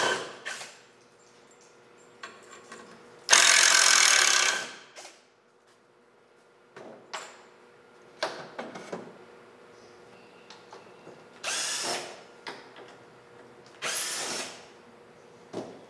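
Cordless drill spinning in separate short runs, backing screws out of a plywood enclosure: a long run of about a second and a half a little over three seconds in, and two shorter runs near the end, with small clicks and knocks of handling between.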